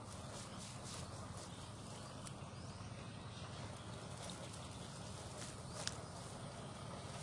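Mesh fish trap being lifted and shifted on a muddy bank: scattered light taps and rustles over a steady hiss, with one sharper click about six seconds in.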